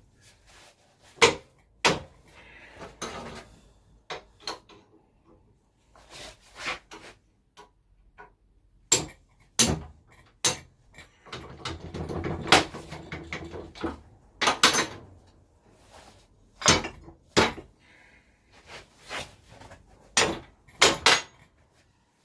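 Heavy steel parts of an old blacksmith's leg vice being knocked apart, handled and set down: sharp metal clanks at irregular intervals, with a stretch of rough scraping about halfway through.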